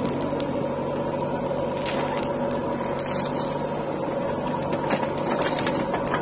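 JCB 4DX backhoe loader's diesel engine running steadily under load, with a constant whine, as the backhoe arm lifts and swings a bucket of soil. A few faint clicks sound over it.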